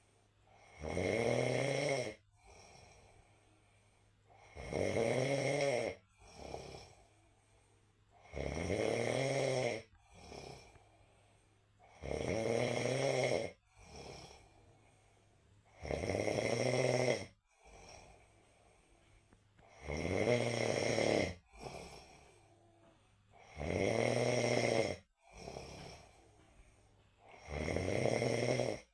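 A person snoring heavily. Eight long rasping snores come about every four seconds, each followed by a softer breath out.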